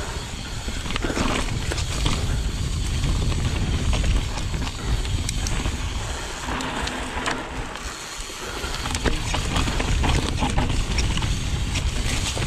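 Mountain bike riding down rough dirt singletrack: wind buffets the microphone with a steady low rumble while the tyres roll over dirt and roots and the bike rattles with frequent small clicks and knocks.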